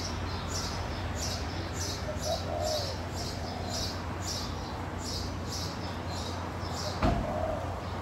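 Birdsong: a bird repeating short high chirps about twice a second, with two soft, low dove coos in between. A single sharp click sounds near the end.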